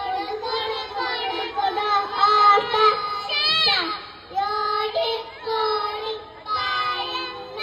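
A group of young children singing together in unison, in short phrases with brief pauses between them.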